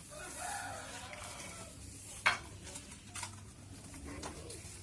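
Motorized rice thresher with a blower running with a low steady hum, with a few sharp knocks.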